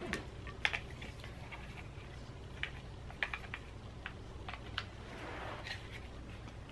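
Scattered light clicks and taps of a plastic AC power adapter and its cord being handled, with a short rustle about five seconds in, over a low steady hum.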